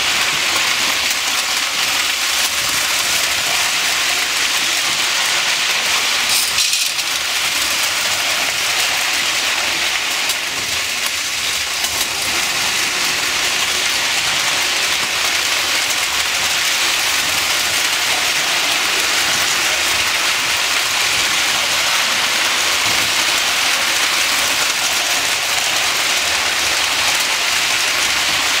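Several Lionel toy trains running at once on three-rail metal track, their motors and wheels making a steady, even rush of noise. A brief sharper sound stands out about six and a half seconds in.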